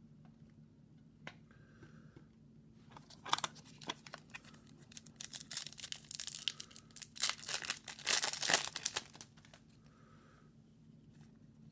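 A hockey card pack's wrapper being torn open and crinkled by hand: crackling tearing noise that starts about three seconds in and comes in two spells over some six seconds, loudest near the end.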